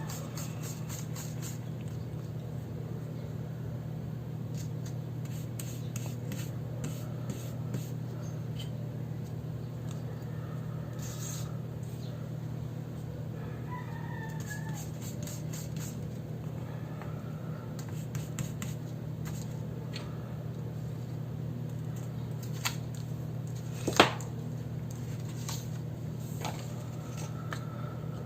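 Bird calls, which sound like chickens or a rooster, come a few times in short curving phrases over a steady low hum. Light clicks and taps are scattered throughout, and one sharp, louder click comes late on.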